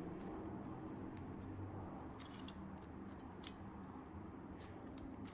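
Plastic clicks of a 5×5×5 Rubik's cube (Professor's Cube) as its layers are turned: about five short, sharp clicks spread irregularly after the first two seconds, over a faint steady hum.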